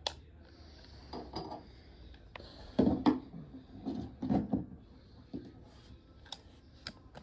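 Handling of a plastic toy walkie-talkie: scattered small clicks and a few short scraping rubs, the loudest about three and four and a half seconds in.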